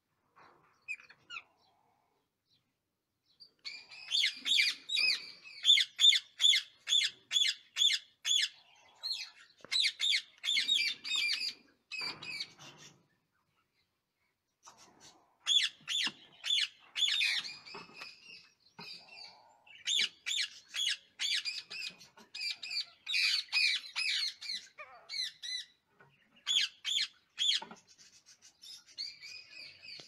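Rose-ringed parakeets calling: bouts of short, rapid repeated calls, about three to four a second, with brief pauses between bouts and softer calls near the end.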